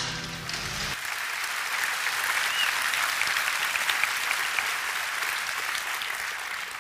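A large audience applauding in a hall. The applause starts about a second in, as the last of a played video's soundtrack cuts off, and dies away near the end.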